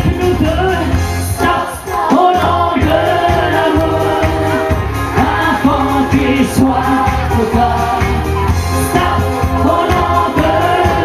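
Live pop song played through a stage PA: a lead singer with backing voices over a band with a steady beat.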